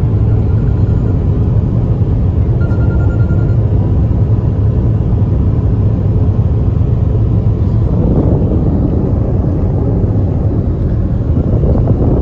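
Steady road and engine rumble heard inside a moving car's cabin, with more wind noise coming in during the second half.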